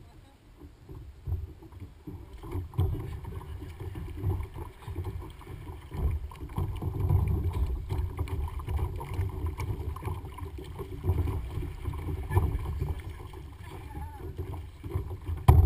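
Paddle strokes and water splashing and sloshing around a plastic sit-on-top kayak being paddled, over an uneven low rumble of wind on the bow-mounted camera's microphone. A sudden louder splash or knock comes near the end.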